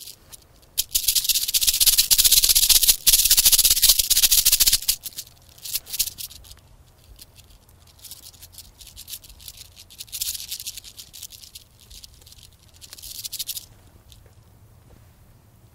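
Rattlesnake shaking its tail rattle: a dense, high buzz held for about four seconds with a brief break, then a few short rattles and two shorter buzzing bursts later on.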